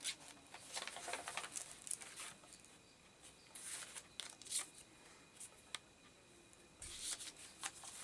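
Paper rustling and crinkling as the pages and fold-out sheets of a handmade junk journal are handled and turned, in short faint bursts with pauses between them.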